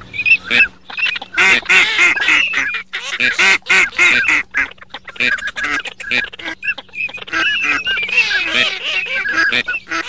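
A flock of ducks calling: many short calls overlapping in quick succession, with no pause, over a faint steady hum.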